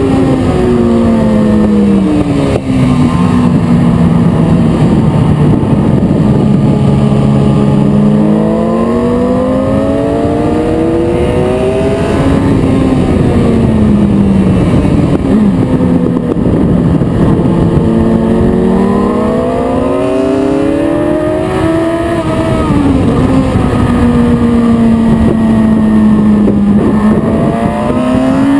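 Sports motorcycle engine heard from an onboard camera at speed, with wind rushing over the microphone. The engine note climbs hard under acceleration and falls away twice, then holds steady near the end.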